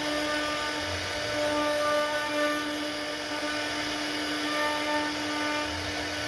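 Genmitsu 3018-PROVer V2 desktop CNC router's spindle motor running with a steady whine, over a noisy rush of cutting.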